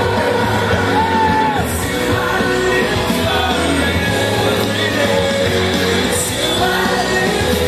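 Music with singing voices over a steady bass line, with some shouting and yelling from a crowd.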